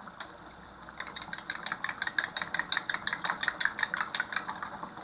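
Cornstarch-thickened curry sauce boiling in a wok, its large bubbles popping in a quick, uneven patter that starts about a second in.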